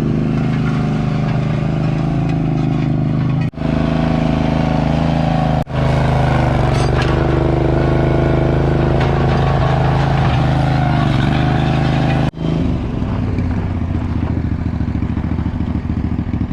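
Heavy equipment engine running steadily under load, broken by three abrupt cuts, with a somewhat different engine sound after the last cut.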